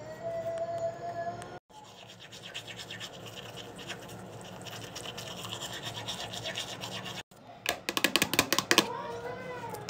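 Manual toothbrush scrubbing teeth in quick repeated strokes. Near the end comes a short burst of loud rapid clicking and rattling, the loudest sound here, as a plastic mouthwash bottle is handled.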